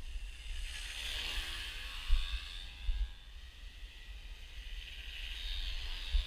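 Electric RC plane's brushless motor (Turnigy SK3 3548, 700 kV) driving a 14x8 beech wood propeller, whining as it flies past: louder about a second in, where its pitch slides down, and again near the end. Wind noise rumbles on the microphone, with a few gusts.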